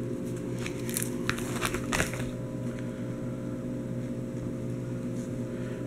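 Plastic trading-card binder pages crinkling and clicking as they are handled, a handful of short sharp rustles in the first two seconds, over a steady low electrical hum.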